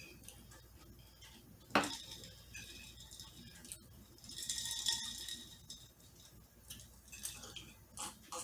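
Ice and glass clinking as a tall glass of iced drink is picked up and handled. There is a sharp clink about two seconds in and a longer spell of ringing clinks around the middle.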